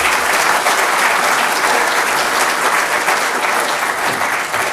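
Audience applauding steadily at the close of a talk: dense hand-clapping from many people.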